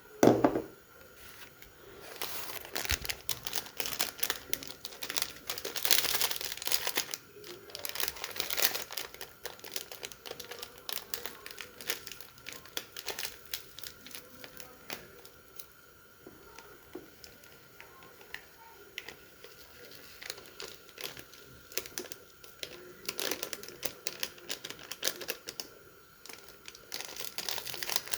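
Kitchen food-preparation handling sounds: crinkling and rustling with many small clicks and knocks, coming in uneven bursts, with a faint steady hum underneath.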